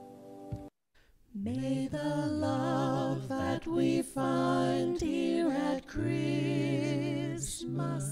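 A held keyboard chord fades and stops about half a second in. After a short pause, a voice sings unaccompanied in long notes with vibrato.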